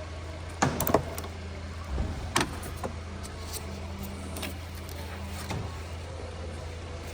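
Scattered sharp clicks and knocks of parts and hand tools being handled while plastic engine-bay components are unclipped and unscrewed, over a steady low hum.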